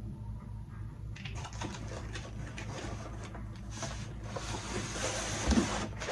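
Packaging being handled and unwrapped: rustling and crinkling that grows stronger toward the end, with a single thump about five and a half seconds in. A low steady hum runs underneath.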